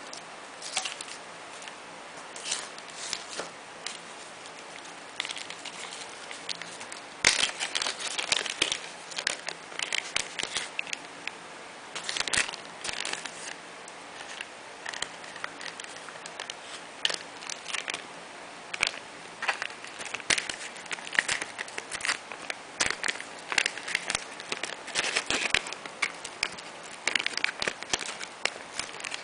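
Clear plastic packaging bag crinkling in irregular bursts as hands handle it and slip a bar of handmade soap inside. A few soft rustles come first, and the crinkling turns dense about seven seconds in.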